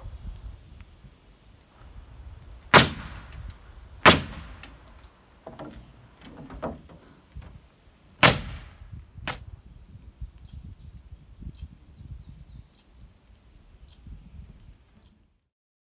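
Pneumatic nail gun driving nails into wood framing: three sharp shots, the first two about a second apart and the third some four seconds later, then a fainter knock about a second after that.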